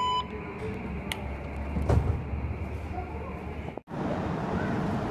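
A short electronic beep from a metro turnstile card reader, then station rumble with a sharp knock and a thud. About four seconds in the sound cuts off abruptly and gives way to the steady noise of a Mexico City Metro platform, with a train standing at the platform and people talking around it.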